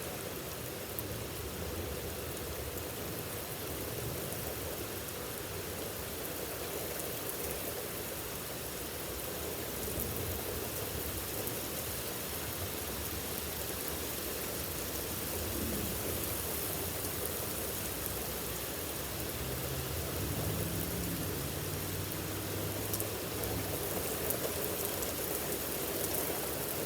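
Heavy rain pouring down steadily, an unbroken hiss of falling water.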